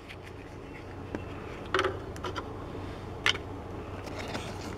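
Hands handling a small cardboard toy box: a few short rustles and taps, the sharpest about two seconds in and again a little after three seconds, over a low steady hum.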